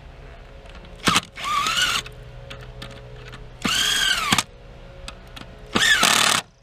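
Power drill driving screws in three short runs, the motor's pitch rising and then falling in each run.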